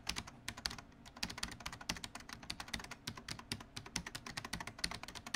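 Fast computer keyboard typing: a dense, irregular run of key clicks, several a second.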